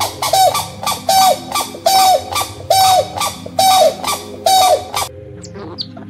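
Grey crowned crane calling: a series of six loud calls, each a short flat note, repeated a little under once a second and stopping about five seconds in.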